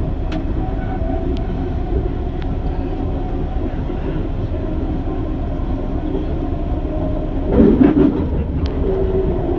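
Detroit People Mover car (UTDC ICTS Mark I, linear induction motor propulsion) running along its elevated track, heard from inside the car: a steady rumble of steel wheels on the rails with a motor hum. A brief louder swell comes near the end.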